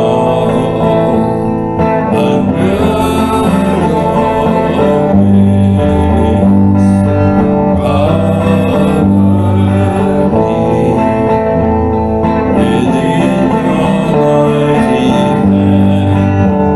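Slow worship song on electric guitar: sustained chords over low notes that change every couple of seconds.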